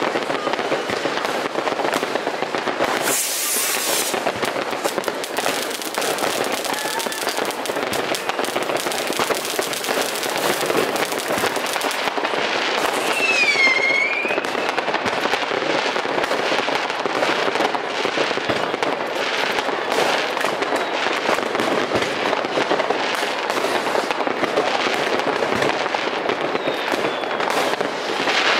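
Many New Year's Eve rockets and firecrackers going off at once across a town: a dense, continuous crackle of bangs and pops. A high whistle dips and rises about halfway through.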